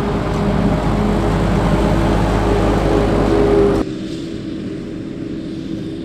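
Claas Jaguar 870 self-propelled forage harvester and the Fendt tractor alongside it running steadily under load while chopping grass silage: a constant engine hum with a rushing noise over it. About four seconds in the sound drops suddenly to a quieter take of the same machines.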